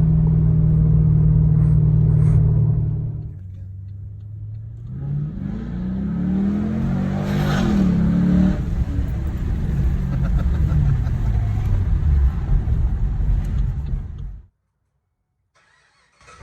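Car engine revving through a 2.5-inch Solo Performance exhaust with J-pipes, an X-pipe and no mufflers, close to straight pipe. It is held at high revs, drops back about three seconds in, then is blipped up and down again a few seconds later and runs on. The sound cuts off abruptly near the end.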